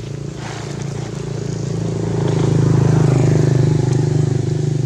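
A motor vehicle engine passing, a steady hum that grows louder to its peak about three seconds in and then fades.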